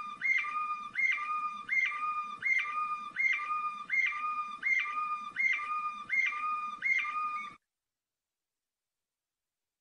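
Canary singing in the Moroccan flauta style: a flute-like phrase of a lower whistle and a higher one, repeated evenly about two and a half times a second. It cuts off abruptly about seven and a half seconds in.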